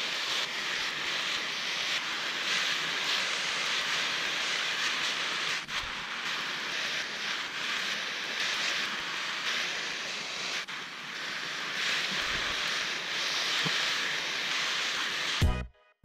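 Garden hose with a pistol-grip spray nozzle spraying a fan of water onto black mulch film: a steady hiss that cuts off near the end.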